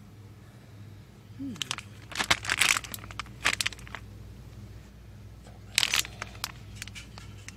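Crinkly plastic packaging being handled and squeezed, rustling in a few short bursts about one and a half seconds in and again near six seconds, over a steady low hum.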